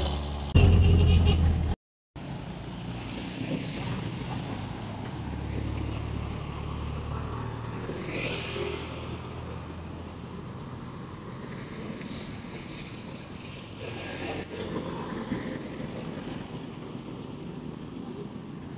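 Road noise from a moving vehicle for about a second, then steady roadside traffic noise with vehicles passing.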